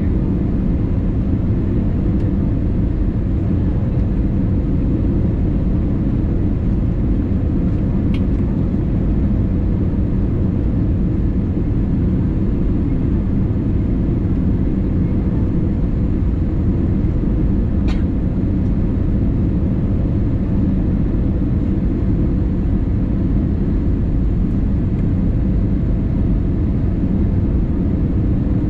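Steady cabin noise inside an Airbus A320neo: a continuous low rumble of the engines and airflow, holding level throughout, with a faint steady hum and a couple of faint ticks.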